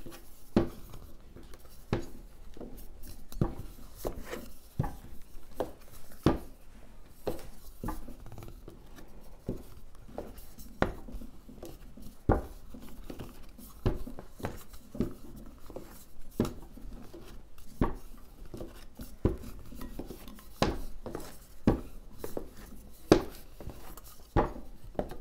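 Stainless steel water bottle rolled back and forth over tortilla dough on a board, with irregular knocks and clicks about once or twice a second as the wobbly table rocks under the pressure.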